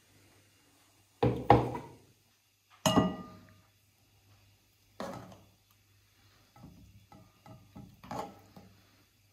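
A metal spoon clanks and scrapes against an aluminium pot and a cut-glass bowl as thick cornmeal porridge is spooned out. There are three sharp knocks about two seconds apart; the second rings briefly. They are followed by a run of lighter taps and scrapes.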